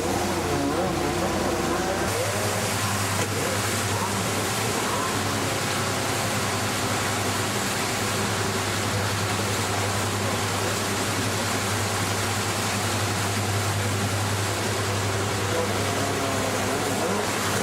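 Steady rushing noise with a low drone from a jet ski running on the water, with a few voices in the first two seconds and near the end.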